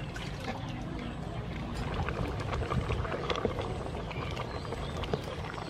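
Chicken and palm fruit curry boiling in a pot, stirred with a wooden spatula: a steady bubbling hiss with small scattered clicks and a low rumble underneath.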